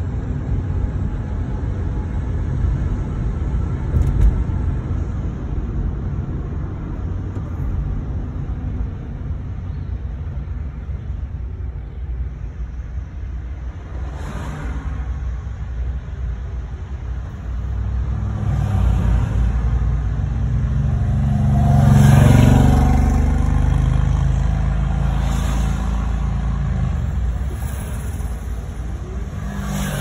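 Motor vehicle rumble, steady and low, swelling louder for a few seconds about two-thirds of the way through before easing off again.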